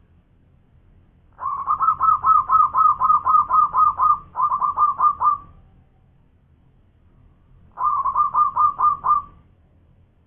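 Zebra dove (perkutut) singing its staccato cooing song. The first run is a quick string of clipped coos, about four a second, with a brief break partway. A shorter run of about seven coos follows a couple of seconds later.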